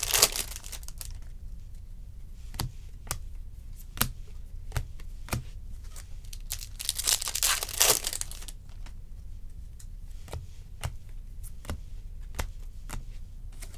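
Foil wrapper of a baseball card pack crinkling and tearing open at the start and again around seven seconds in, with scattered sharp clicks in between as the cards are slid and flicked through by hand.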